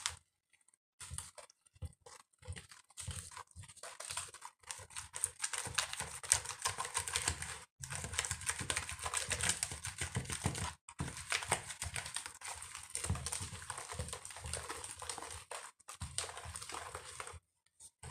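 Wire whisk beating thick pancake batter in a plastic bowl: fast, irregular clicking and scraping strokes of the wires against the bowl, with a few brief pauses.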